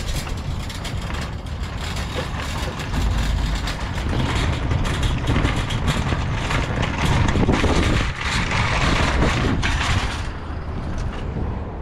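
Shopping cart rolling across an asphalt parking lot, its wheels and basket rattling; the rattle is loudest in the middle and stops near the end as the cart is pushed into a row of carts.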